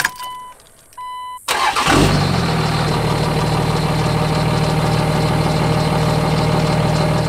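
A dashboard chime beeps twice as the key is turned. Then the 24-valve Cummins 5.9 L inline-six turbodiesel cranks briefly, catches about two seconds in and settles into a steady idle. This is the first start after a new lift pump was fitted and the fuel system was primed and purged of air, and it starts promptly.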